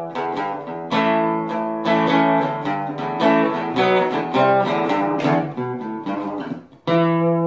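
Guitar music with plucked notes that ring and decay, ending near the end on a single chord left to ring out.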